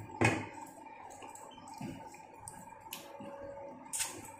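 Eating ripe mango slices by hand: wet sucking and chewing with scattered mouth smacks and clicks, a sharper smack just after the start and another near the end, over a faint steady hum.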